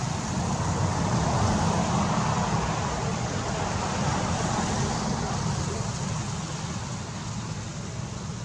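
Steady road-traffic noise, swelling as a vehicle passes about one to five seconds in and then easing off.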